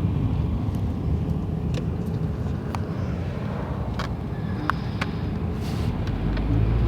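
Steady low rumble with a few short sharp clicks and crackles as a CD's plastic packaging is handled and opened by hand.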